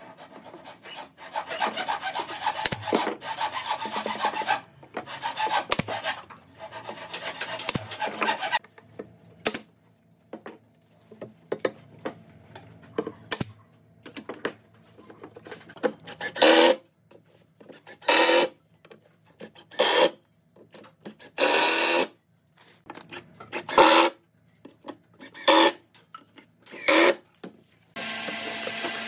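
Wood being worked by hand with scraping, rubbing strokes. The first stretch is continuous; later the strokes come singly, about every second and a half to two seconds.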